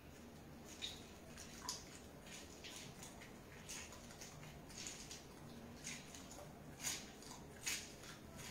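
A lemon half being squeezed and twisted on a fork over a small bowl: faint, scattered squishes and drips of juice, one small tick every half second or so.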